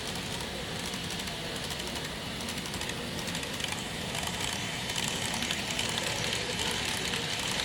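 N gauge model train running on layout track: a steady whirring clatter of motor and wheels on rail that grows louder about four seconds in.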